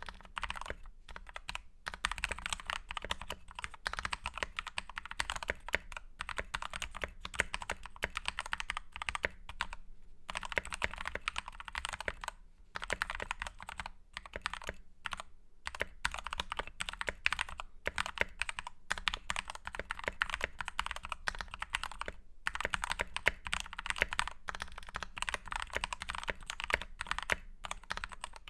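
Typing on a Novice68 mechanical keyboard with lubed Gateron Black linear switches: a quick, dense run of keystrokes broken by a few brief pauses.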